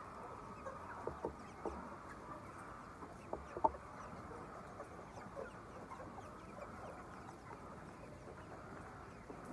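A large flock of chickens in a poultry house, a steady mass of clucking and chirping with short louder calls standing out, the sharpest about three and a half seconds in.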